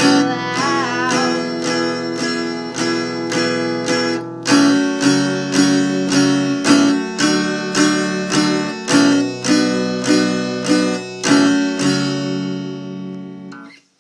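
Acoustic guitar strummed in a steady rhythm, about two strums a second, over a bass line; the last chord rings and fades out just before the end.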